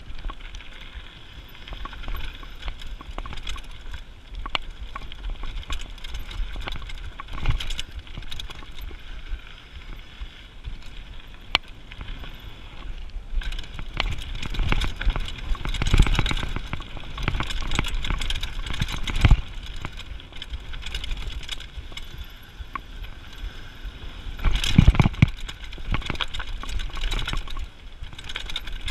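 Mountain bike rolling fast down a dry dirt-and-gravel trail: tyres crunching over loose stones, with the frame and components rattling and several harder knocks as it hits bumps.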